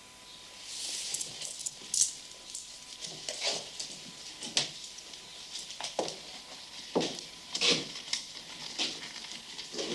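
Irregular close-up rustles, scrapes and small knocks of objects being handled. A hissing rustle about a second in gives way to a run of separate sharp clicks and knocks, roughly one a second.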